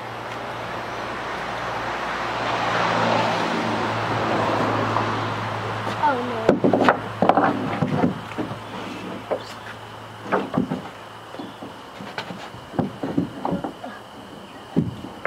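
A vehicle passing by, its noise swelling and fading over the first six seconds, then scattered knocks and taps of lumber and tools on the shed's wooden floor and framing.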